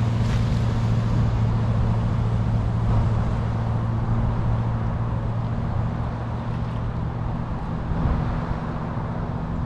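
Land Rover 4x4 driving through deep floodwater: a steady engine hum under the continuous rush and splash of its bow wave and spray.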